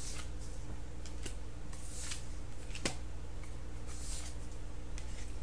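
Tarot cards being handled and laid onto a wooden table: soft rustles of card stock about every two seconds and one sharp tap a little before the middle, over a steady low electrical hum.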